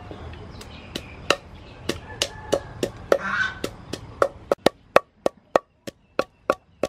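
Wooden pestle pounding chilies in a deep wooden mortar: a steady run of dull knocks, about three a second.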